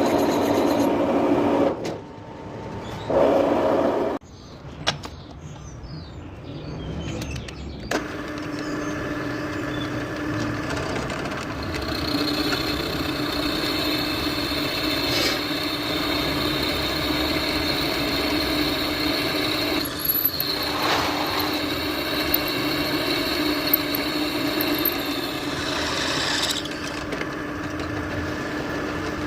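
Metal lathe running with a steady whine while machining a cast iron part. The sound cuts out abruptly about two seconds in, returns briefly, then settles back to a steady run from about eight seconds on.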